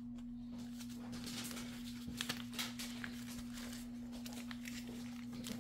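Faint rustling and soft creasing clicks of printer paper being folded by hand, a few slightly louder creases about two seconds in, over a steady electrical hum.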